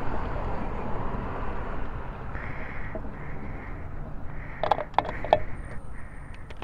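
Gasoline being poured from a plastic water bottle into a car's fuel filler, with a few sharp clicks about five seconds in.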